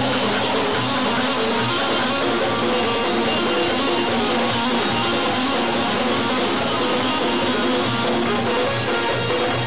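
A live band plays amplified music: plucked strings from an oud and guitars over a keyboard, with a steady low beat about twice a second.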